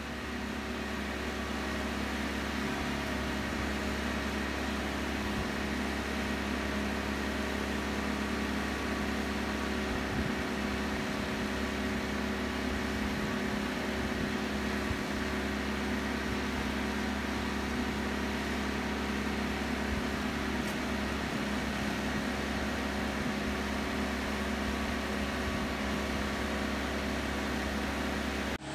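Marine travel lift's engine running steadily with a constant low drone and a few steady tones as its slings hoist a sailboat out of the water.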